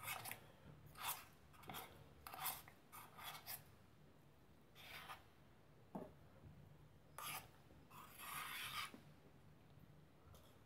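Faint, intermittent rustling and scraping from things being handled, in short soft brushes with a longer rub near the end.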